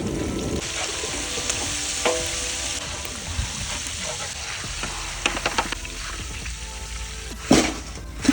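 Flour-coated chicken legs frying in hot oil, a steady sizzle, with a few sharp clicks and a louder knock near the end.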